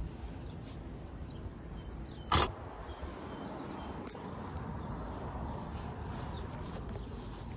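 Steady outdoor background noise while walking over grass, with one short, sharp knock about two seconds in.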